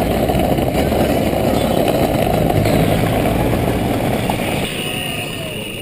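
Wind buffeting the microphone of a bike-mounted camera while riding, a loud rumble that eases off near the end.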